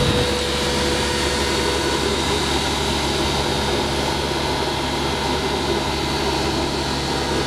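Compact street sweeper running close by: a steady whine from its engine and suction fan over a hiss, as its rotating side brush sweeps the paving stones.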